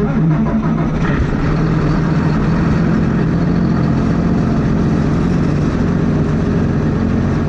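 Heavy farm machine's engine running steadily under load, with a strong low hum and a noisy rumble that cuts off abruptly near the end.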